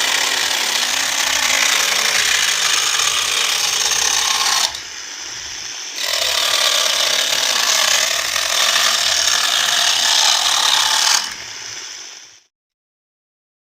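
Homemade mini chainsaw cutting wood, a dense grinding noise. It eases off for about a second a little under five seconds in, then cuts again and dies away near the end.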